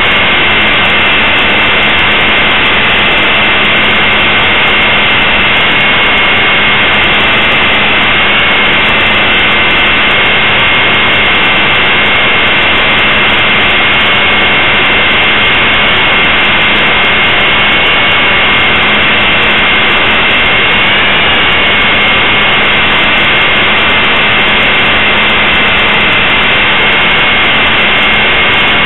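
Blade 450 3D electric RC helicopter heard from a camera mounted on it: a loud, steady high whine from the brushless motor and drive gears over the rush of the spinning rotor, its pitch holding nearly level with small wavers.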